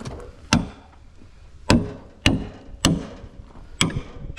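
Hammer blows on wood, five sharp knocks at uneven spacing, roughly a second apart, each with a short dull ring.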